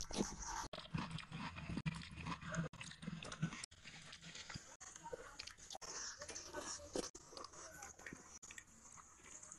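Close-miked chewing and wet mouth smacking of a person eating rice and curry by hand: a dense run of small irregular clicks and squelches.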